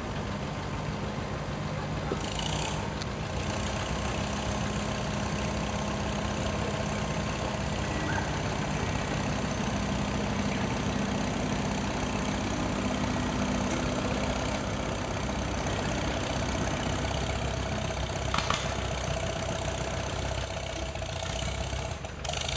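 1951 Farmall H's four-cylinder engine running steadily under load while the tractor drags a weight sled stacked with concrete blocks.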